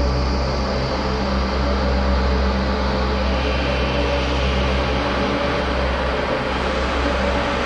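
A steady, low mechanical hum with a constant drone, easing a little in the last couple of seconds.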